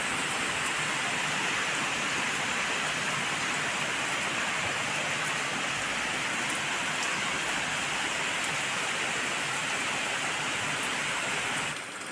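Heavy rain pouring steadily, an even hiss with faint scattered drop ticks; it grows quieter near the end.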